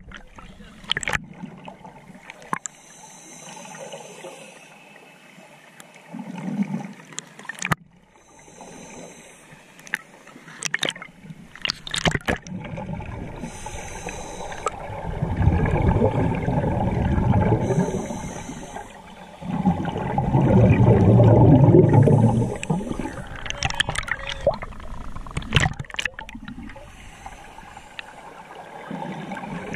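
Recorded underwater: a diver breathing through a regulator, with short hissing inhalations and long gushes of exhaled bubbles, the two loudest about halfway and two-thirds of the way through. Before that, water sloshes with a few sharp clicks as the camera goes under.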